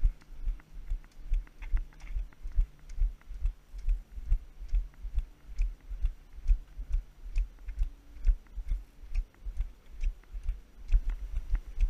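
Brisk walking footfalls, dull thuds about three a second, with light clicks of Nordic walking pole tips striking the paved path.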